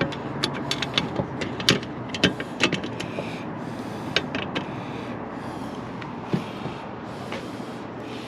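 Hand tools and small metal parts being handled on a car body: a quick run of sharp clicks and taps for the first few seconds, then softer rubbing and scraping, over a steady background hiss.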